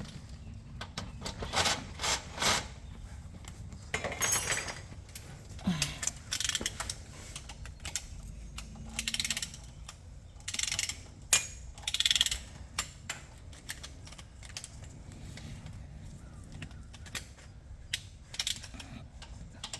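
Connecting-rod cap bolts of a Kia engine being run in with a tool, in short irregular bursts of mechanical noise, each under a second, with pauses between.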